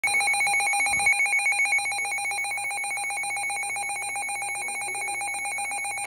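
Midland handheld NOAA weather radio sounding its alert alarm, a loud electronic tone rapidly warbling between two pitches, which signals that a warning (here a severe thunderstorm warning) has been received.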